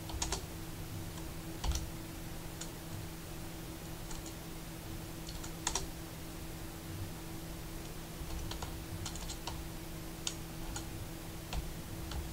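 Computer keyboard being typed on: single keystrokes and short runs of a few keys, with pauses between them, over a faint steady hum.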